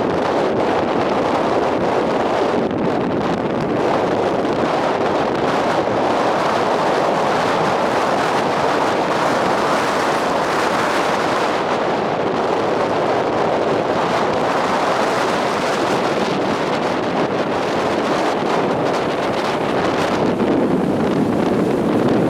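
Strong post-typhoon wind buffeting the microphone of a handheld compact camera, a steady, dense rush of noise, with sea surf mixed in beneath it.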